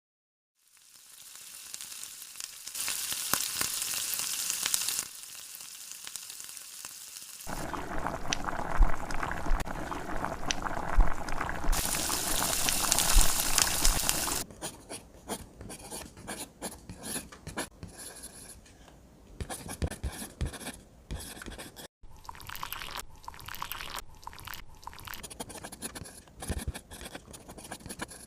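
Food sizzling in hot oil in a pan, getting louder partway through, then a utensil stirring and scraping in the pan with many short, irregular scrapes and knocks.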